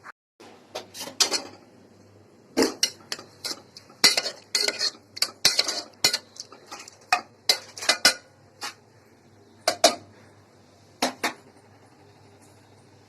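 Metal spoon clattering and scraping against a metal cooking pot in quick, irregular strokes with short pauses, dying down near the end.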